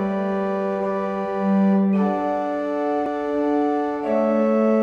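Pipe organ playing held chords that change every second or two, the bass note dropping out about two seconds in and coming back near the end.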